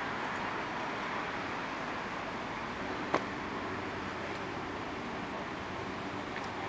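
Steady road traffic on a busy multi-lane city boulevard: cars' tyres and engines blend into continuous noise. A single sharp click comes about three seconds in.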